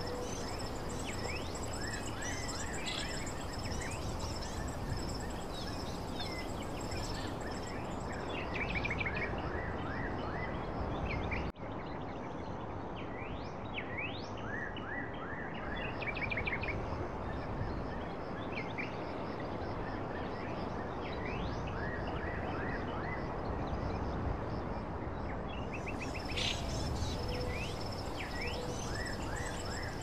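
Forest nature ambience: birds chirping in short repeated calls over a steady rushing noise, with a steady high-pitched drone. The ambience drops out for an instant about a third of the way in, where the recording is spliced.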